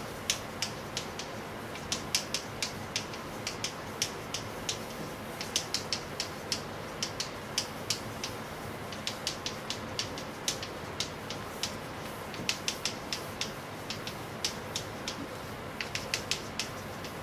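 Chalk tapping and scraping on a chalkboard as words are written: short, sharp clicks in quick, irregular clusters, over a faint steady hum.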